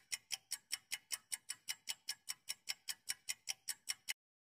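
Clock-ticking countdown-timer sound effect: short, even ticks about five a second, stopping shortly before the answer is read out.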